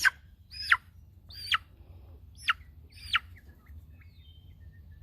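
A six-week-old Cochin chick giving loud distress peeps while being held: about five sharp calls, each falling steeply in pitch, coming less than a second apart and stopping a little past halfway.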